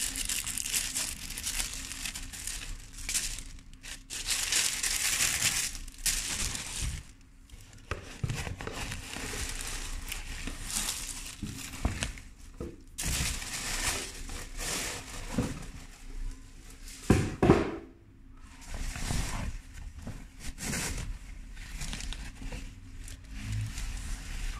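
Paper packaging being crumpled and rustled by hand while a box is unpacked, coming in irregular spells with short pauses. There are a couple of louder knocks about two-thirds of the way through.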